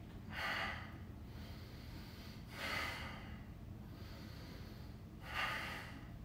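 A man breathing hard under strain while holding a hollow hold: three forceful breaths, about two and a half seconds apart.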